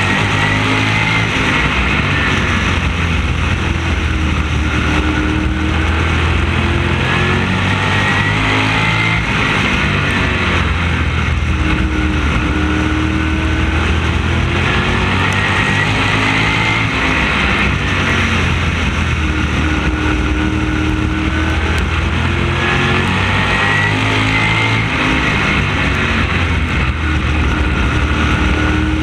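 Onboard sound of an open-wheel oval race car's engine at racing speed, the engine note rising down each straight and dropping into each turn about every five to six seconds, with wind rushing over the car.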